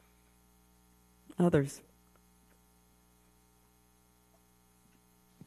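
Near silence with a faint, steady electrical mains hum, a stack of even tones. One short spoken word comes about one and a half seconds in.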